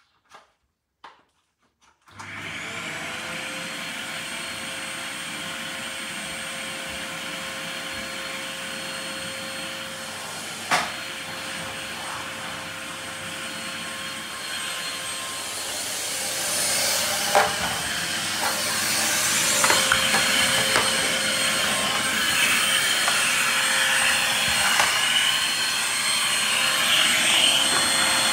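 Canister vacuum cleaner switched on about two seconds in, its motor spinning up to a steady whine and running on. About halfway through the suction rush grows louder, with a few sharp knocks.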